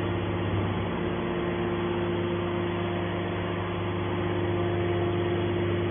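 Hydraulic metal shavings baler running: a steady machine hum from its motor and hydraulic pump, holding an even pitch and level.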